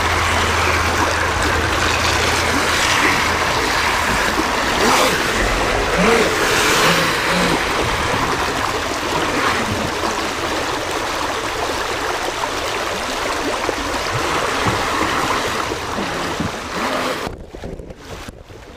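Creek water rushing steadily over a shallow rocky riffle, with a low steady hum for the first few seconds; the sound fades out near the end.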